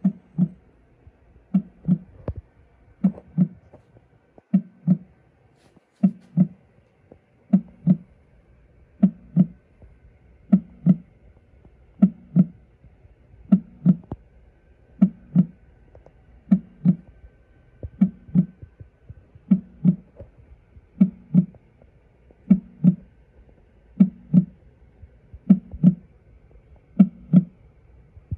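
Recorded heartbeat played from a small speaker: a slow, steady lub-dub, each double thump about a second and a half apart.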